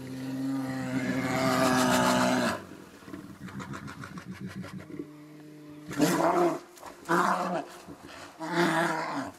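A large wild animal roaring: one long roar that swells over about two and a half seconds, then, after a pause, three shorter roars about a second apart.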